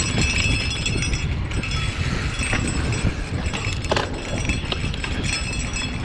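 Mountain bike riding on loose, powdery dirt singletrack: a steady wind rumble on the mic over tyre noise, with the bike's chain and frame rattling in scattered clicks. A louder knock comes about four seconds in.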